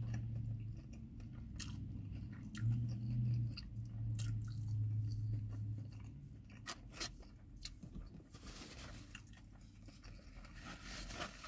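Close-up chewing of a sauced fried chicken wing: wet mouth sounds and a few crisp crunches. A low hum comes and goes through the first half.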